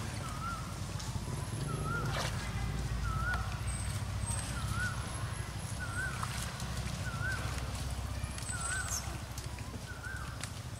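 Outdoor wildlife ambience with an animal repeating a short wavering call about once a second, over a steady low rumble and faint high chirps.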